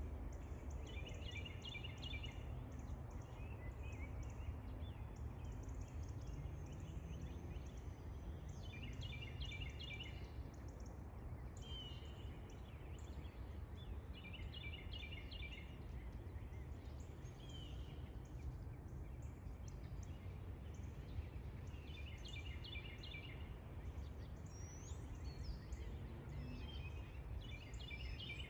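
A songbird singing a short phrase of quick repeated notes, about every five seconds, with a few single chirps between phrases, over a steady low outdoor rumble.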